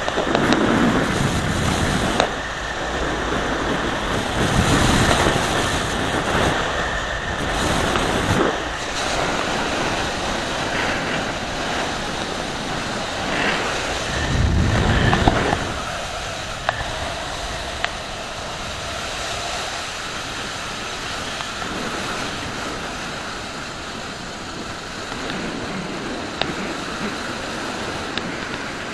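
Wind rushing over the microphone of a camera mounted on a moving motorcycle, with road and riding noise underneath. It buffets in heavy gusts through the first half, then settles a little quieter and steadier from about halfway through.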